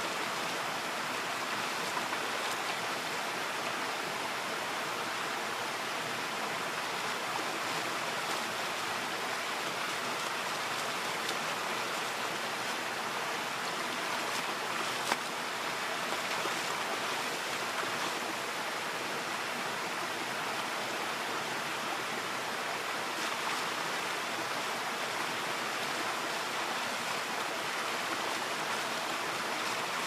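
Shallow creek water running over stones, a steady rushing, with light splashing as cloth is scrubbed by hand in the stream and one brief sharp sound about halfway through.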